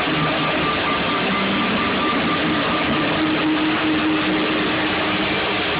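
Loud electronic dance music from a festival sound system, picked up by a phone microphone as a dense, steady wash of sound with a couple of held tones.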